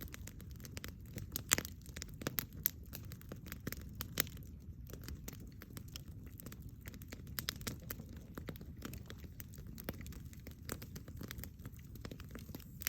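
Wood fire burning, with irregular crackles and sharp pops over a steady low rumble.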